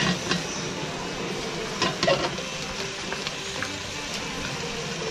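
Kavourmas (beef in its own fat) sizzling in a frying pan over a high flame as its fat melts, stirred with a wooden spatula that knocks and scrapes against the pan a few times, the sharpest knocks about two seconds in.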